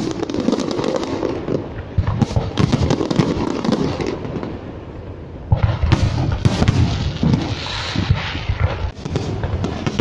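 Aerial fireworks shells going off in a rapid barrage of bangs and crackle over a continuous low rumble. The barrage eases off a little before halfway through, then a dense new volley starts abruptly about five and a half seconds in.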